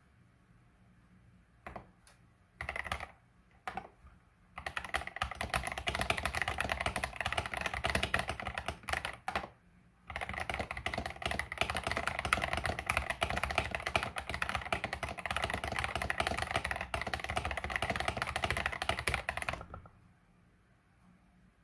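Typing on an 8BitDo Retro Mechanical Keyboard with linear KTT Strawberry switches: a few single keystrokes, then fast continuous typing, a short pause about ten seconds in, and more fast typing that stops a couple of seconds before the end.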